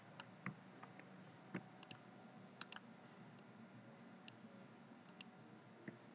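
Faint, irregular clicks from a computer mouse and keyboard, about a dozen scattered through, some in quick pairs, over quiet room tone.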